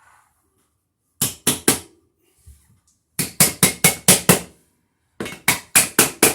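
Snap-on cover of a wire mold surface raceway being tapped into its base track: three runs of quick, sharp knocks, about four a second, as the cover is seated all the way in.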